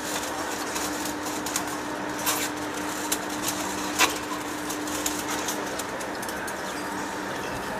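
Steady machine hum with a low drone, with a couple of sharp metallic clicks about two and four seconds in.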